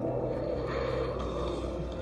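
A steady low mechanical hum and rumble with a noisy hiss over it, the background sound of a film scene.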